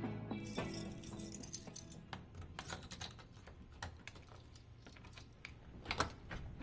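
The last of a musical chord dies away in the first second, then come faint irregular light clicks and taps, several a second, with a louder cluster near the end.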